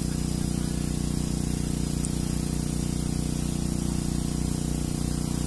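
Steady motor drone holding one even pitch, with a constant hiss over it.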